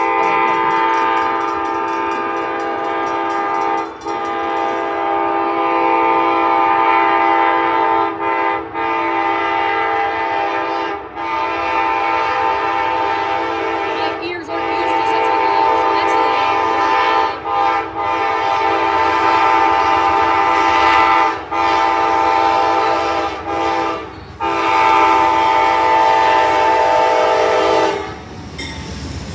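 Amtrak passenger locomotive's multi-chime air horn blowing long blasts with many brief breaks as the train approaches a grade crossing. It stops near the end.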